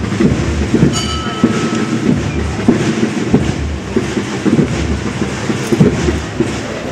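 Procession drums beating a slow, steady march, a dull low beat about every two-thirds of a second under many quicker, irregular knocks.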